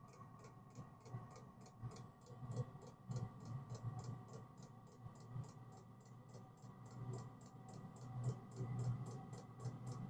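Diesel air heater's fuel dosing pump ticking steadily, several clicks a second, over the low hum of its combustion and air fans as the heater comes up to running after the glow plug has switched off.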